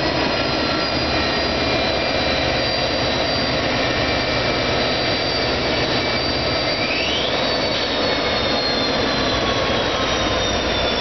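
Freight train running: a steady, loud rumble and roar with faint high-pitched wheel squeal that drifts slowly down in pitch, and one short rising squeal about seven seconds in.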